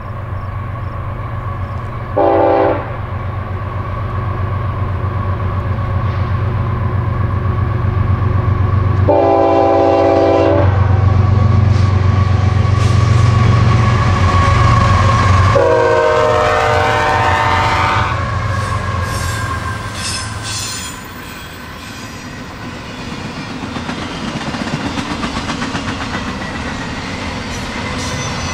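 Union Pacific double-stack container train passing: several diesel locomotives with a deep, steady engine drone sound the horn three times, first a short blast, then a longer one, then a long one as the lead units go by. After the engines fade, the container cars roll past with a rhythmic clickety-clack of wheels over the rails.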